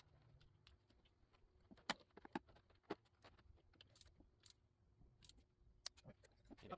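Faint, irregular light clicks and metallic taps of hand tools and parts being handled, the loudest about two and three seconds in.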